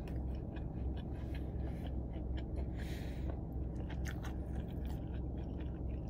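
A person chewing a mouthful of burger with the mouth closed: soft, irregular smacking clicks over a steady low hum.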